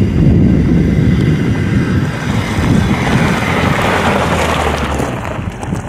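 Hyundai Santa Fe SUV driving down a loose dirt-and-gravel track and passing close by. The engine and the tyres on gravel build to a peak about four seconds in, then fade, with wind rumbling on the microphone.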